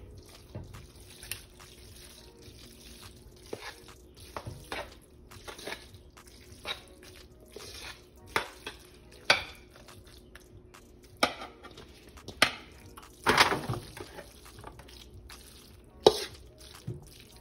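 Cooked macaroni and cheese being pushed with a fork out of a metal mixing bowl into a glass baking dish and a foil pan: soft wet plops of pasta, with irregular scrapes and clinks of the fork against the bowl.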